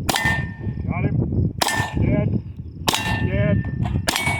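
Four gunshots about a second and a quarter apart, each followed by the ringing clang of a struck steel target.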